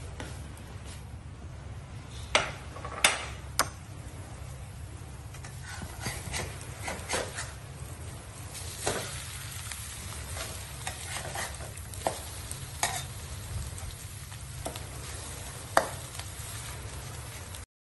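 Tiny shrimp stir-frying in a pan: a spatula stirring and scraping with a light sizzle, and several sharp clinks of the utensil against the pan. A steady low hum runs underneath, and the sound cuts off suddenly near the end.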